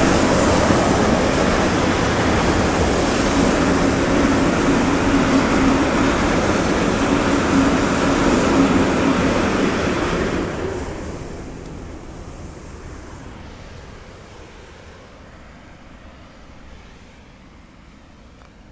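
Freight train of high-sided bulk wagons rolling past, a loud steady rumble of wheels on rail. The last wagons go by about ten seconds in, and the noise fades away over the next several seconds to a faint background.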